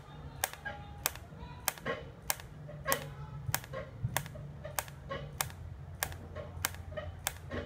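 Automatic weld-ripple pulser for a TIG welder clicking at an even, slow rate, about one sharp click every 0.6 seconds, over a low steady hum. The slow click rate is the unit set to its slow pulse setting.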